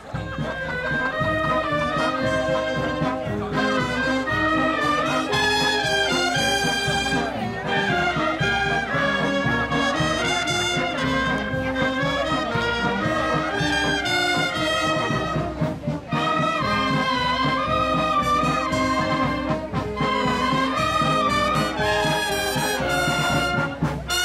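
Marching band of brass and clarinets playing a tune in the street, with a sousaphone among the instruments.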